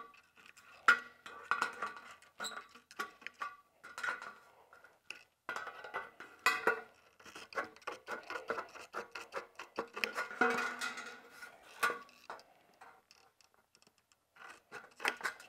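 Hand snips cutting across a heavy-gauge metal window trim panel: a run of irregular crisp metallic snips and crunches, pausing briefly near the end.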